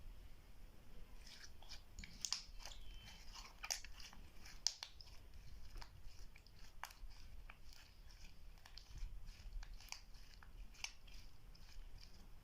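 Clear slime being squished and worked by hand, giving a steady run of sticky, irregular clicks and small crackling pops, the sharpest a little under five seconds in.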